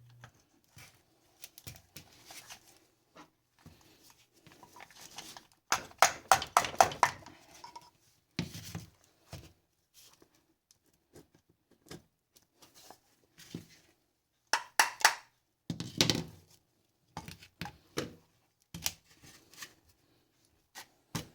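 Scattered clicks, taps and knocks of a car starter motor's metal parts being handled as its gear housing is taken apart, with louder clusters about six and fifteen seconds in.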